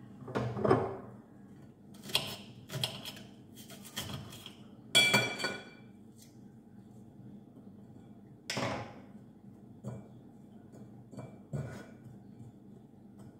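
Ceramic plate knocked and clinked irregularly as hands tear green pepper and spring onion into pieces on it, with one ringing clink about five seconds in.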